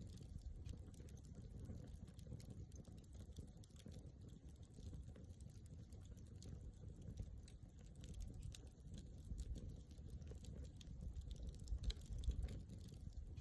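Wood campfire crackling softly, with scattered small pops and ticks over a low steady rumble.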